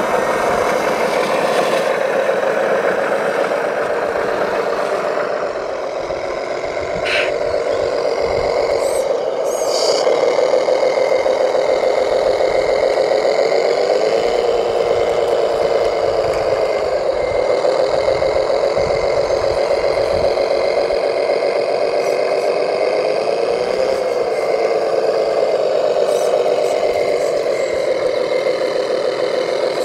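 Radio-controlled model truck running with a steady engine-like drone, its pitch shifting briefly a couple of times, with a few small clicks early on.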